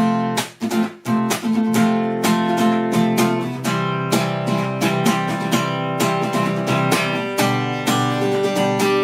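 Acoustic guitar strummed in chords, with no singing. It starts with a few short, cut-off strokes, then settles into steady strumming about a second in.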